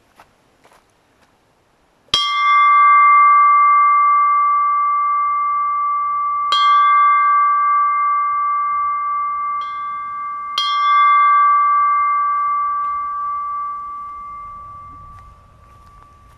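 Brass bell in a wooden frame rung by its clapper rope: four strikes, the third one light, each leaving a clear ringing tone that lingers and fades away near the end.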